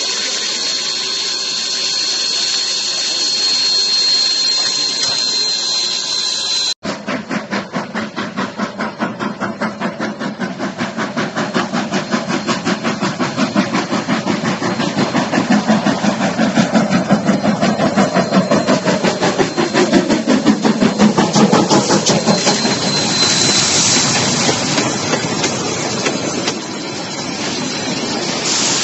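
Steam locomotive hissing steadily with a thin high tone. After a sudden cut, its exhaust chuffs in a rapid, even beat as the train gets under way.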